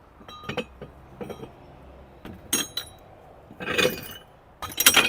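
Loose steel engine timing gears and broken gear fragments clinking against each other as they are handled: about five sharp, ringing metallic clinks, the loudest near the end. The gears are damaged, worn and with a broken tooth, from a timing gear train that chewed itself up.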